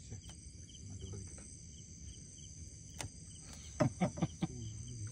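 Night chorus of crickets and other insects: a steady high-pitched trill with a pulsing chirp repeating under it. A single click about three seconds in and a brief cluster of short low sounds around four seconds in are the loudest moments.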